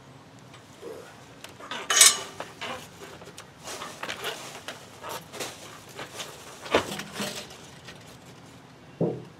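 Irregular metallic clanks and knocks from someone climbing a steel lattice antenna tower, with the loudest knock about two seconds in and several more scattered through.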